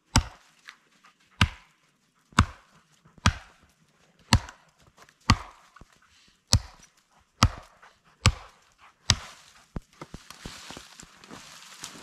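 Axe chopping into wood: ten heavy strokes, about one a second and evenly paced. The strokes stop about ten seconds in, and a soft rustling hiss follows.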